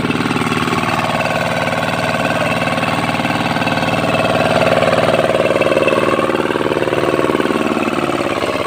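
Engine of a walk-behind hand tractor (power tiller) running steadily as it works a flooded rice paddy, a little louder in the middle.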